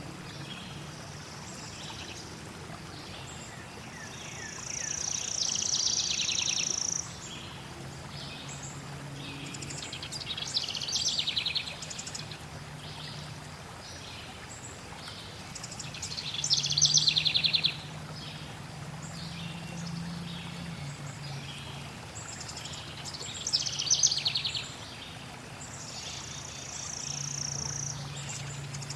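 Songbirds singing in short phrases and fast trills, a burst every few seconds, over a steady rush of flowing water.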